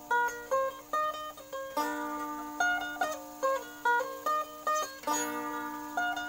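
A sape, the Borneo boat lute, played solo: a plucked melody of short, ringing notes over a lower drone string that rings steadily and is struck again twice.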